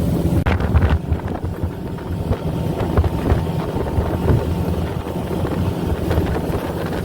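Motorboat engine running under way, with heavy wind buffeting the microphone.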